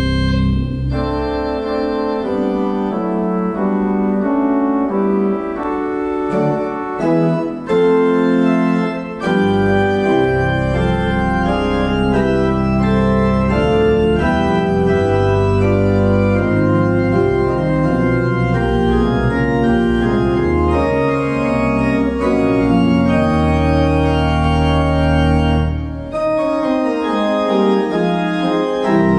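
Residence pipe organ playing a piece: a continuous stream of sustained chords that change about every half second. Deep pedal bass notes come in about a third of the way through and drop out near the end.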